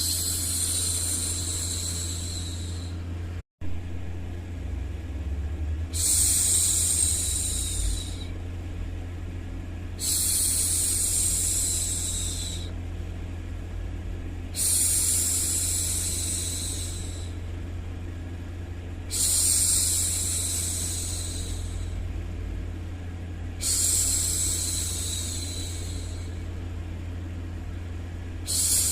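A woman's long 'shhh' shushing sound, repeated about every four to five seconds, each hiss lasting two to three seconds, over a steady low hum of white noise. The sound cuts out for a split second about three and a half seconds in.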